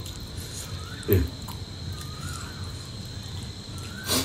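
Faint background of a steady high-pitched whine and a soft rising-then-falling call repeating about every second and a half. A short low voice-like sound comes about a second in, and a light click near the end.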